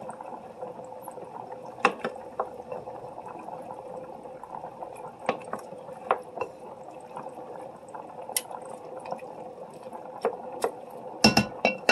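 A wooden spoon stirring a thick, bubbling sauce in an enamel Dutch oven over a steady hiss of boiling on the stove. The spoon clicks against the pot now and then, with a quick run of louder knocks near the end.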